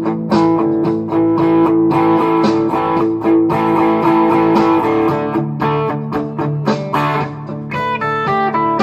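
Electric guitar playing an instrumental melody: a note held for about five seconds, then a run of quicker picked notes.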